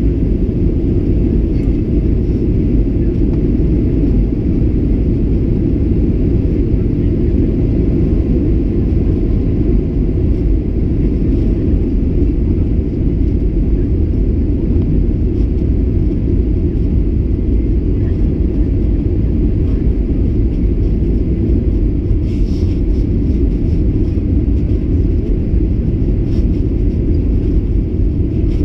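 Boeing 737-800 cabin noise in flight: a steady, loud low rumble of the CFM56 jet engines and airflow past the fuselage, heard from a window seat.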